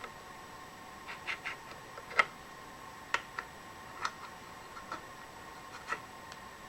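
Scattered light clicks and taps of small hand tools handled against a brass workpiece during layout, irregularly spaced, the sharpest about two seconds in, over a faint steady tone.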